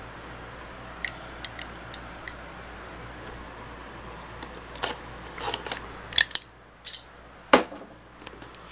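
Camcorder retail box being opened by hand: scattered light clicks, then sharper cardboard and plastic packaging snaps and rustles, the loudest a single sharp snap about three quarters of the way in, over a low steady hum that stops about two thirds of the way in.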